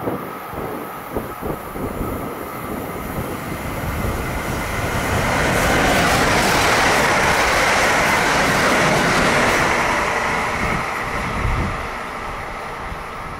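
Electric train passing on the rails: the running noise swells over several seconds, holds loudest for about four seconds, then fades away near the end.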